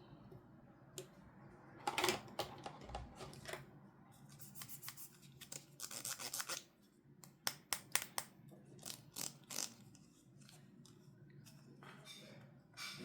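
Toy packaging being opened and handled by hand: an irregular run of crinkles, scrapes and sharp clicks of plastic and cardboard.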